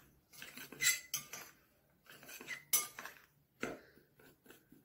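Metal spoon stirring dry cornstarch and gelatin powder in a glass bowl, with irregular clinks and scrapes of the spoon against the glass.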